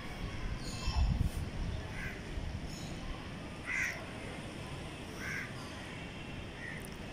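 Crows cawing: four short calls spaced out over several seconds, against a steady outdoor hum. A low rumble on the microphone about a second in.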